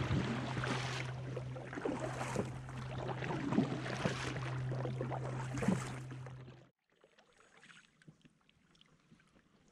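Kayak paddle strokes splashing in river water, roughly one every second and a half, over a rush of water and wind and a steady low hum. About two-thirds through, the sound cuts off abruptly to near quiet with faint ticks.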